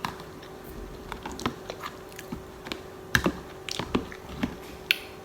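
Close-up chewing of a mouthful of stuffed clam: scattered soft wet mouth clicks and smacks, a few louder ones about three and four seconds in, over a faint steady hum.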